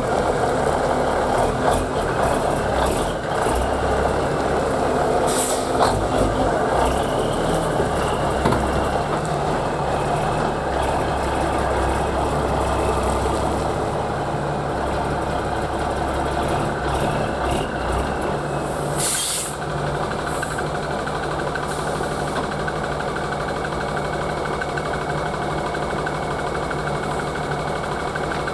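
Peterbilt 359 dump truck's diesel engine running steadily under load, with two short hisses of air-brake release, one about five seconds in and one near twenty seconds.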